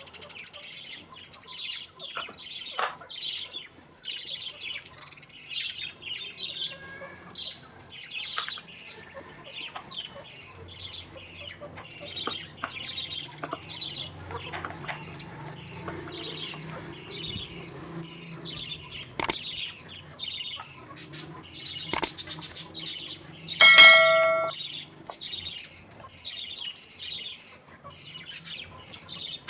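Small birds chirping continuously, several short high calls a second, with a few sharp knocks. About 24 s in comes a loud, short, steady-pitched ringing tone, the loudest sound.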